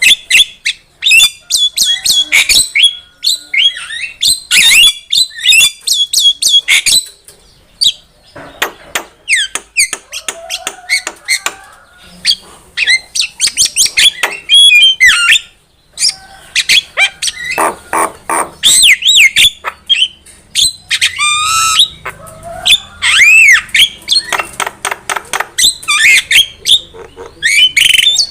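Javan myna singing a loud, busy medley of harsh squawks, sliding whistles and rapid clicking chatter, with a couple of short pauses.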